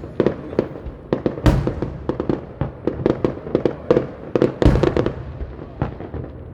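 Fireworks bursting in quick succession: a dense run of sharp cracks and pops, with two louder booms about a second and a half in and just under five seconds in, thinning out near the end.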